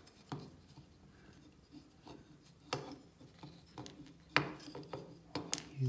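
Handling noise from a wooden string puzzle: cotton cord and fingers rubbing on the wooden frame and dowels, with several light wooden clicks and knocks scattered through.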